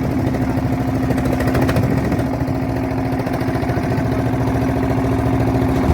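Small boat's engine running steadily at a constant speed, its fast even firing pulses under a steady hum.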